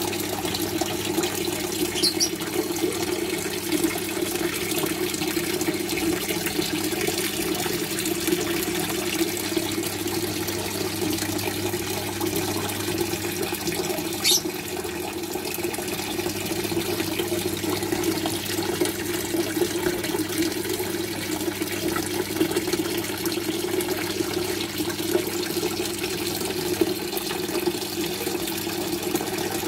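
Water running steadily and splashing into a goldfish tank, like a filter or pump outflow falling onto the surface, with a low hum under it. One sharp click about halfway through.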